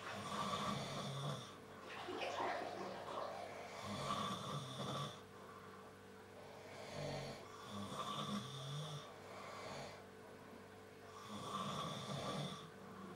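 People snoring in their sleep, one snore after another every two to four seconds, over a faint steady hum.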